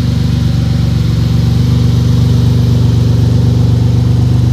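Car engine idling steadily, a low even rumble that grows slightly louder in the first second or two.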